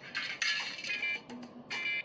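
Coins jangling and clinking inside a piggy bank as it is shaken in irregular bursts, over background music.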